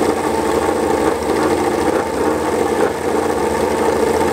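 Yamaha YZR-M1 MotoGP bike's crossplane inline-four engine running steadily at idle.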